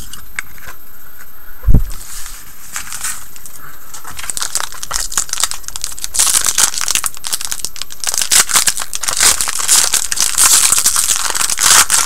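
Foil wrapper of an Upper Deck Artifacts hockey card pack being torn open and crinkled in the hands; the crackle grows denser and louder in the second half. A single low thump comes just under two seconds in.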